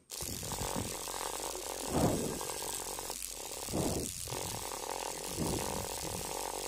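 Homemade pen tattoo machine's small electric motor buzzing steadily as its needle marks a board, with a few brief swells in level.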